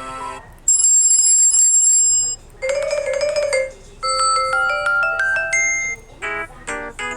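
Samsung Galaxy Tab ringtone and notification sounds played one after another as short clips: a bright high chime, then a wavering held tone, then a quick run of notes stepping up and down, and near the end a few short clipped notes. Each clip starts and stops abruptly, with brief gaps between them.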